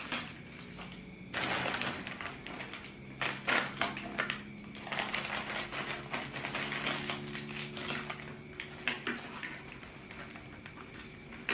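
A thin plastic cracker packet being torn open and crinkled by hand, with irregular crackly rustling that comes in bursts.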